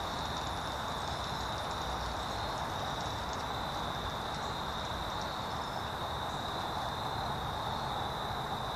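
Steady outdoor background hiss with a constant high-pitched insect drone. The pipe hit itself makes no distinct sound.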